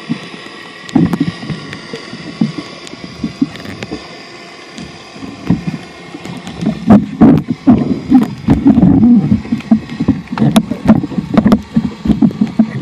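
Water sloshing and bubbling around the microphone, with scattered sharp clicks, growing busier and louder about six seconds in.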